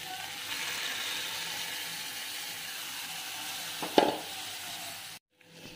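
Rice and moong dal poured into a kadai of vegetables frying in ghee, with a steady sizzle. A single sharp metal clink about four seconds in, then the sound cuts off abruptly near the end.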